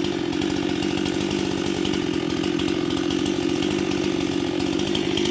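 Gas chainsaw's two-stroke engine running at a steady speed.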